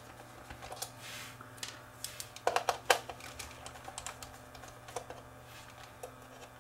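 Irregular small clicks and taps of a screwdriver and fingers working screws and plastic parts on a camcorder's plastic viewfinder housing, with a cluster of sharper clicks about two and a half to three seconds in, over a faint steady hum.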